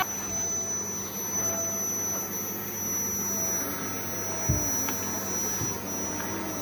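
Vacuum cleaner running steadily, its motor giving a constant high-pitched whine over a low hum. A soft low knock about four and a half seconds in.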